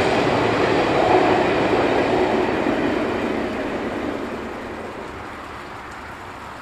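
Tail end of a heritage passenger train, with diesel locomotive 4204 at the rear, passing and fading away: steady rumble and clatter of wheels on the rails, growing steadily quieter.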